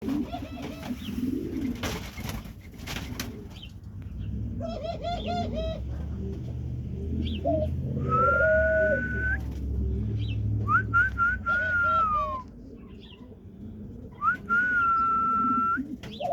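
Dove cooing in quick runs of short notes, mixed with several long, steady whistled tones, one of which falls in pitch at its end.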